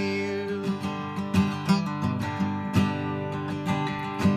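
Instrumental passage between sung lines of a country song, carried by strummed acoustic guitar.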